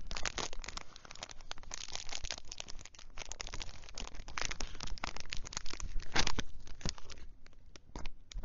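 Clear plastic wrapper crinkling and crackling as it is peeled off a new fountain pen, held right against a lavalier microphone. Dense sharp crackles, thinning out briefly near the end.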